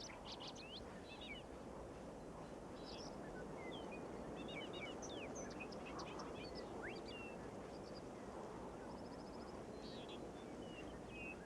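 Faint outdoor ambience of small birds chirping, with many short scattered calls and a brief fast trill about nine seconds in, over a steady low hiss.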